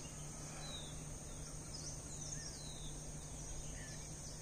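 Forest ambience: a steady high insect chorus, with a handful of short, falling bird chirps scattered through and a faint low steady hum underneath.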